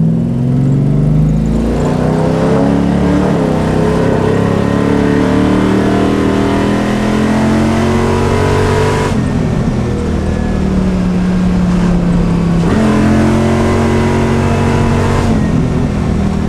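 Cammed 502 cubic-inch big-block Chevrolet V8 crate engine with a Nelson Alien intake, in a 1970 Chevelle SS, running hard under acceleration. The note breaks and drops abruptly about nine and thirteen seconds in, as at gear changes.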